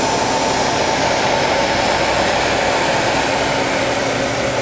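Steady whir of running machinery, a constant hum with a few fixed tones and no changes or impacts.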